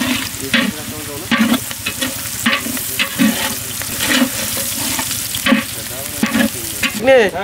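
Chopped onion and chillies sizzling in hot oil in a pan, stirred in repeated strokes about once a second while they fry.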